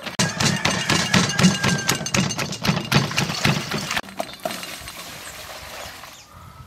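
Wooden pestle pounding in a clay mortar: a run of steady, repeated knocks that stops about four seconds in, leaving only quieter noise.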